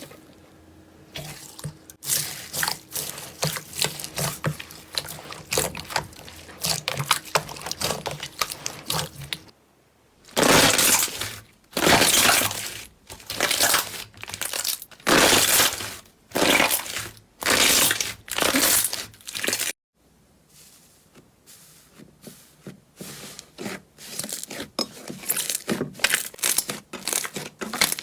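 Slime being handled up close: a run of fine crackles and pops, then about ten loud squishes a second apart as it is pressed, then finer crackling again.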